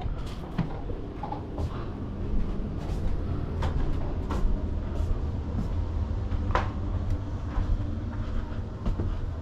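Vacuum cleaner running with a steady low hum, with scattered sharp clicks and knocks throughout.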